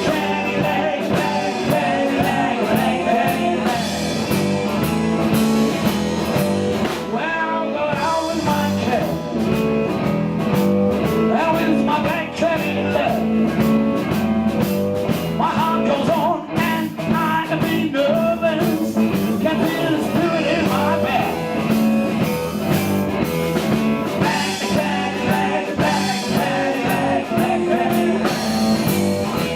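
Live blues-rock band playing: an electric guitar lead with bending notes over bass and a drum kit.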